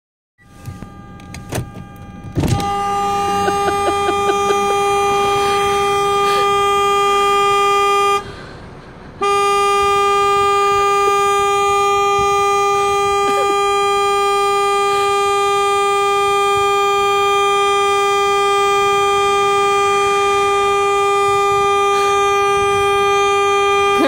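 Car horn held down by an Airedale terrier leaning on the steering wheel: one long steady honk starting about two and a half seconds in. It breaks off for about a second roughly a third of the way through, then sounds on without stopping.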